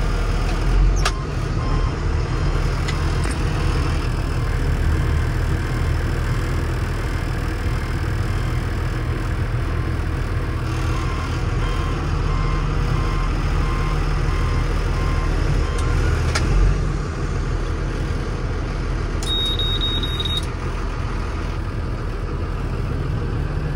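Ford Super Duty catering truck's engine running steadily, heard from inside the cab as a low hum. Two short knocks come about a second in and again around two-thirds of the way through. Near the end there is a high beep lasting about a second.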